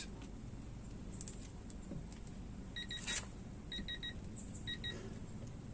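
Short electronic beeps from a digital torque meter as it is set to 100 foot-pounds: seven beeps in groups of two, three and two, with a single click after the first pair.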